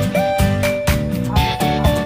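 Upbeat instrumental background music with a steady beat and a lead melody that slides between notes.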